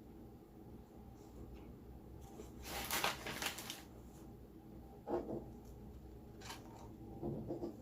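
Close-up eating sounds from a fried chicken sandwich: a crackling burst about three seconds in, then a few short smacks and clicks.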